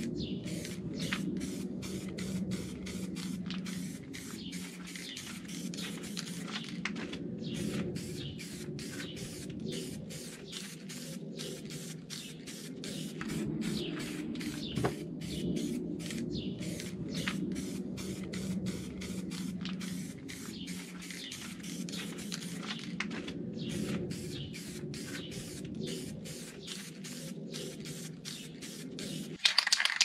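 Aerosol spray paint can hissing in many short bursts in quick succession, laying a light dusting of white topcoat over primer.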